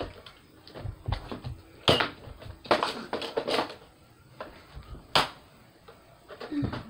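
Scattered clicks, knocks and rustles of Nerf blasters being handled during a Nerf fight, with two sharp snaps about two seconds and five seconds in.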